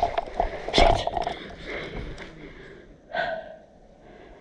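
A person breathing hard and gasping close to the microphone, with a few sharp clicks in the first second.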